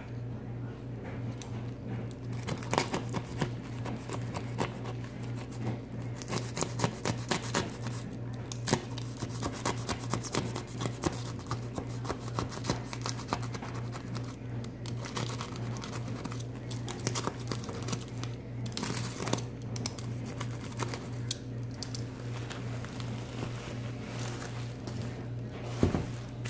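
Plastic bag and paper stuffing crinkling and tearing in short irregular rustles and clicks as it is picked and pulled out of the carved openings of a hardened paper clay pumpkin. A steady low hum runs underneath.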